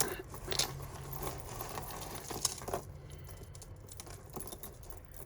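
Costume jewellery being handled: metal chains and pendants clinking and jangling, with a few sharp clicks, the loudest about half a second in and again about two and a half seconds in.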